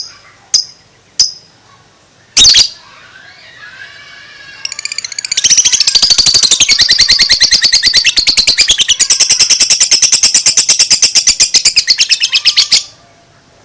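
A lovebird giving a few sharp single chirps, then a long 'ngekek': a fast, rattling chatter of rapidly repeated high notes, about eight seconds long, that stops abruptly near the end.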